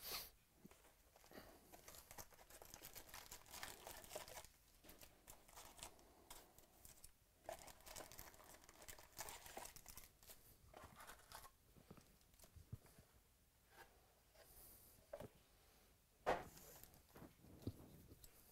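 Faint tearing and crinkling from a cardboard trading-card box being opened and its foil-wrapped card packs being handled, in irregular rustles with a sharper tear at the start and another about sixteen seconds in.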